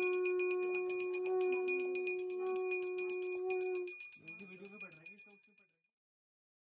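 A small temple bell rung rapidly and evenly during the lamp worship. A long steady note is held under it for about four seconds. A short voice follows, and the ringing stops near the end.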